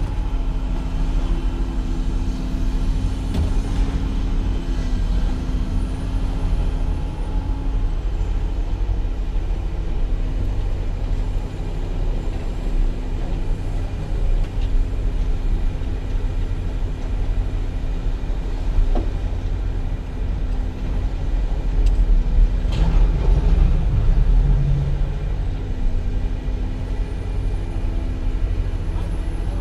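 A vehicle engine running steadily with a low rumble, louder for a few seconds with a sharp knock about three quarters of the way through.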